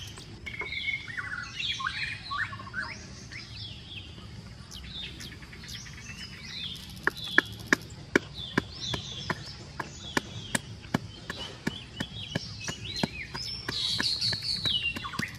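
Small birds chirping throughout. About seven seconds in, a wooden pestle starts pounding in a small mortar of red chilies, sharp knocks about two to three a second that are the loudest sound.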